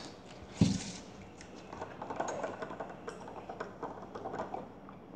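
Small tabletop handling sounds: one soft knock about half a second in, then scattered light clicks and taps as a plastic mug is picked up and drunk from.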